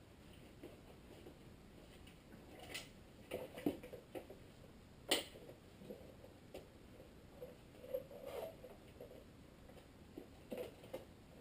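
Faint, scattered clicks, taps and rustles of a motorcycle clutch cable and its rubber grommets being pushed through the frame's cable guides, with one sharper click about five seconds in.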